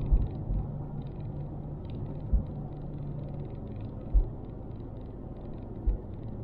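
Car driving on the road, heard from inside the cabin: a steady low rumble of tyres and engine, with four brief low thumps spread through it.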